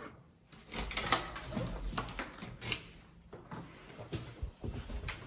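A room door being unlocked and opened: a series of scattered clicks and knocks from the lock, latch and door.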